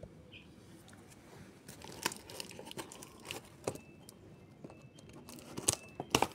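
Scissors cutting into a taped cardboard parcel: a series of separate sharp snips with tearing and crinkling of tape and cardboard. The loudest cuts come about two seconds in and near the end.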